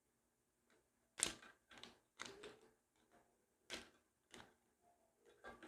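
Hard plastic clicks and snaps as a Tesla Model 3 steering-wheel clock spring (spiral ribbon-cable housing) is pried apart by hand: about six sharp clicks, the loudest about a second in.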